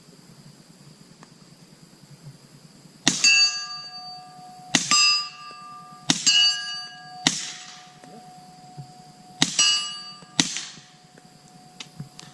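Suppressed gunshots, each with a steel target ringing out in a clear, fading metallic tone. Four ringing hits come at uneven intervals, the first about three seconds in, and two duller reports in between carry no ring.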